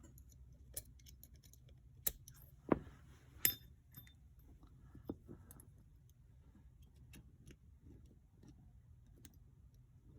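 Small metal parts of an H&R Model 676 revolver clicking and tapping as they are worked into place by hand: a scatter of light clicks, with three sharper ones about two to three and a half seconds in.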